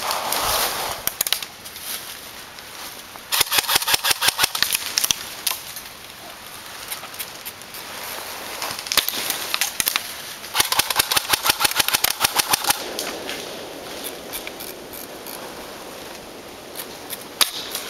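Airsoft electric gun firing two full-auto bursts of about two seconds each, at roughly ten shots a second, with a few single shots in between.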